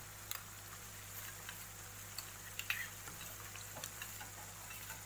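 Onions and capsicum frying in soy-vinegar sauce in a pan, a faint steady sizzle, with a few scattered light clicks.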